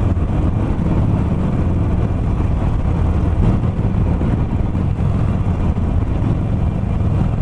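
Harley-Davidson Iron 883's air-cooled V-twin running steadily at cruising speed, a continuous low rumble mixed with wind rush over the handlebar-mounted camera.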